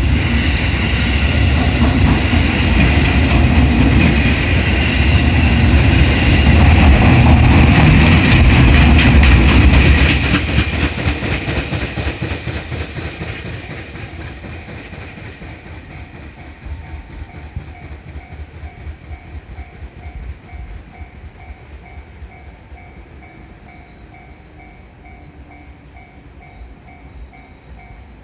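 A train passing at a Japanese railroad crossing, wheels clattering over the rail joints, loud for about ten seconds and then fading away. As the train recedes, the crossing's warning bell is heard ringing in a steady, repeating kan-kan.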